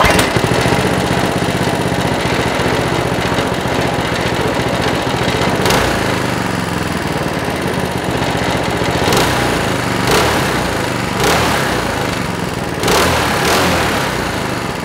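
Go-kart engine running at idle, with about half a dozen quick throttle blips from about six seconds in that briefly raise the revs to around 4600 rpm.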